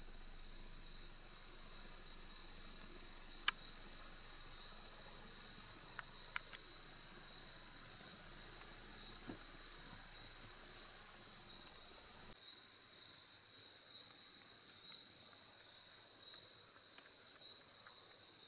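Steady insect chorus: a shrill, slightly pulsing trill at one high pitch with fainter higher tones above it. A few sharp clicks stand out, one about three and a half seconds in and two about six seconds in.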